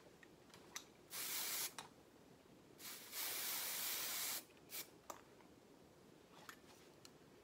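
Aerosol can of Windblown 05 dry finishing spray sprayed onto curled hair in two hissing bursts: a short one about a second in and a longer one of about a second and a half near the middle. A few faint clicks follow.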